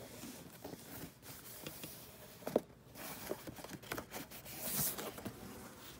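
Cardboard doll box and its packaging being handled and opened: scattered rustles, scrapes and light knocks, with one sharp knock about two and a half seconds in and a longer rustle near five seconds.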